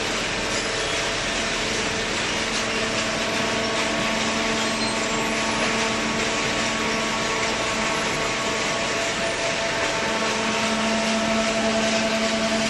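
Cardboard baler and its feed conveyor running: a steady industrial machine drone with a constant hum. The hum grows stronger about ten seconds in.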